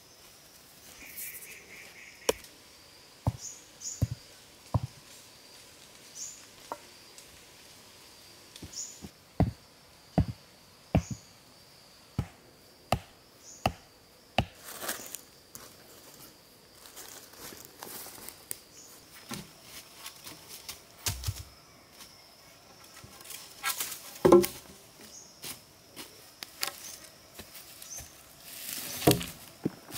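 Wooden stakes being knocked into packed earth: a run of sharp, irregular knocks, about one a second. In the second half come louder thuds and scraping, the loudest about two thirds of the way in. A steady high insect drone goes on throughout.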